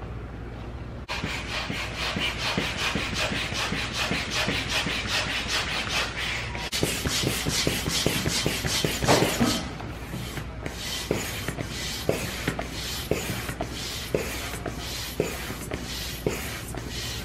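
Hand air pump inflating a vinyl inflatable kayak's chamber, its strokes a rasping rush of air. About ten seconds in, it settles into a regular rhythm of roughly two strokes a second.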